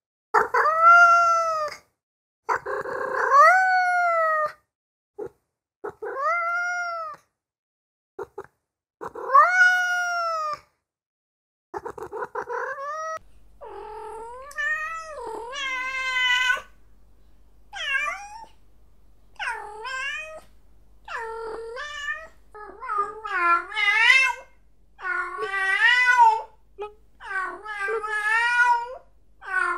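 Domestic cat meowing repeatedly. First come a few long, drawn-out meows with silent gaps between them. About halfway through, a quicker run of shorter meows with wavering pitch begins, over a faint low hum.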